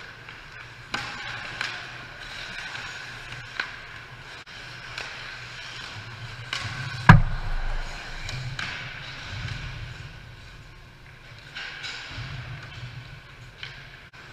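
Ice hockey play up close: skate blades scraping the ice and sticks clacking, with one loud sharp hit and a low boom about seven seconds in.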